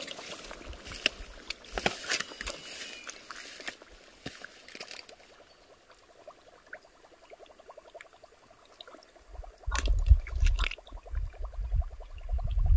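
Lure casting over shallow water: faint water gurgling and splashing with scattered light clicks. About ten seconds in, a heavy, uneven low rumbling sets in and becomes the loudest sound.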